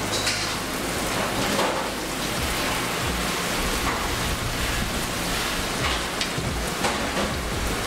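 Sesame-crusted ahi tuna steaks searing in hot butter and oil in a non-stick pan: a steady, crackling sizzle.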